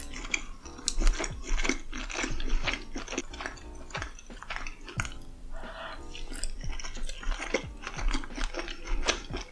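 Close-miked chewing of a mouthful of sushi roll, with many sharp mouth clicks and smacks. Soft background music runs underneath.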